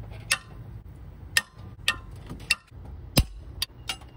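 Sharp metallic clicks and knocks, about seven spaced irregularly and loudest a little after three seconds in, from a 15 mm socket wrench being worked on the engine's bolts to break them loose.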